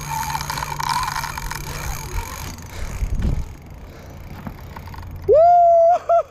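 Fishing reel drag whirring steadily as a big white sturgeon pulls line off the reel for the first couple of seconds. Near the end a man gives two loud whooping cheers of "Woo!".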